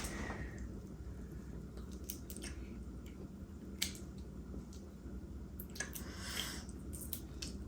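Close-up eating of a seafood boil: soft wet chewing and squishing, with a few sharp clicks and cracks from the seafood being pulled apart.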